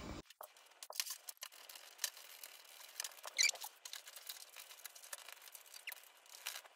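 Faint clicks, ticks and scrapes of a hand Phillips screwdriver turning screws into a metal TV wall-mount bracket on the back of a TV, with a short squeak about halfway through.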